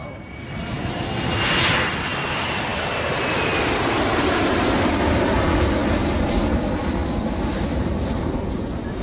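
Fixed-wing aircraft engines running with a loud, steady rush that builds over the first couple of seconds and eases a little near the end: a plane departing.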